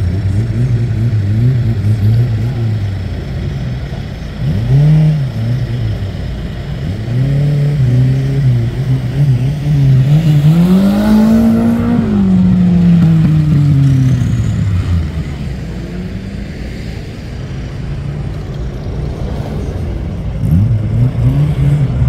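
Off-road vehicle's engine revving in repeated bursts. The longest rev climbs to its highest pitch about halfway through and falls away over a few seconds. The engine then runs lower and steadier before another short rev near the end.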